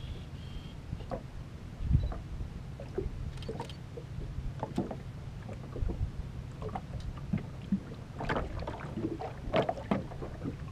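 Small waves slapping and lapping against the hull of an aluminium fishing boat, with scattered light knocks and a steady low hum underneath. Wind buffets the microphone in a few low thumps.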